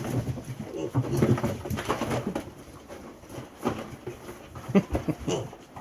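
Piglets grunting, short low grunts close together over the first couple of seconds, then sparser, with scattered clicks and knocks.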